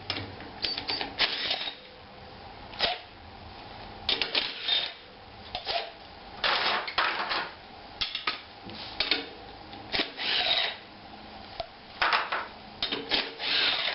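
Impact driver hammering in short bursts of rapid clicking, about a dozen times with pauses between, loosening bolts on a garden tractor's rear wheel.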